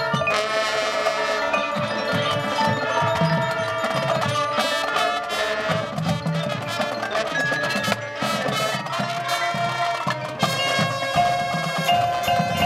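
High school marching band playing, with the front ensemble's mallet percussion (marimbas and bells) struck in quick notes over sustained held tones.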